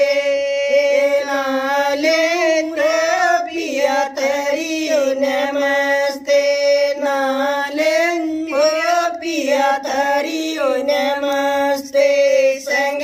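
Women singing a Haryanvi folk song unaccompanied, in long drawn-out notes that glide between pitches.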